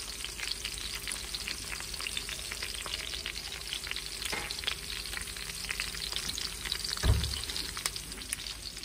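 Pork belly chunks sizzling and crackling as they fry in their own rendered fat, with no oil added. There is a dense, steady patter of small pops, and a single low thump about seven seconds in.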